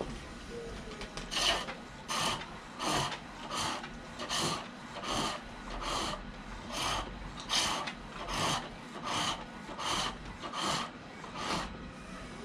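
Turning tool cutting green silver birch on a foot-powered pole lathe: a rhythmic rasping cut, about fourteen strokes roughly three-quarters of a second apart, starting about a second and a half in. Each stroke is one treadle press; the lathe spins the wood back and forth and the tool cuts only on the downstroke.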